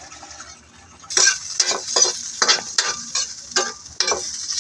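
Food frying in hot oil in a wok over a wood fire, with a utensil stirring and scraping the pan. The sizzle rises sharply about a second in, and the scrapes come in quick strokes, about three a second.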